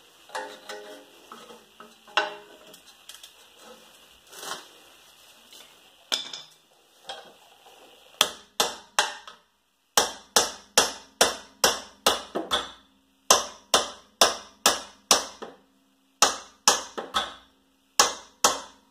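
Hammer blows on a stuck rear wheel hub of a 2010 Toyota Prius, banging it loose: scattered light clinks and taps at first, then about eight seconds in a run of sharp metal strikes, two or three a second, in short bursts with brief pauses.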